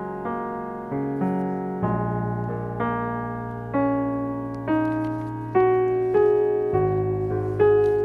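Slow piano background music: single notes struck about once a second, each ringing and fading, over low held bass notes that change twice. It grows louder in the second half.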